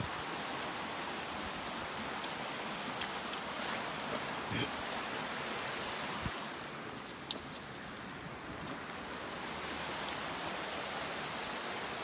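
Creek water rushing steadily over stones, with a few faint clicks.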